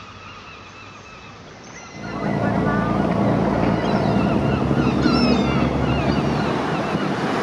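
A small motorboat under way: a steady engine hum under the rush of water and waves against the hull, with wind on the microphone. It starts abruptly about two seconds in, after a quieter stretch with a few faint steady tones.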